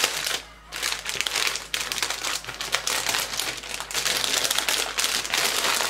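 Clear plastic packaging of an embroidery kit crinkling and rustling as it is handled and pulled open, with a short lull about half a second in.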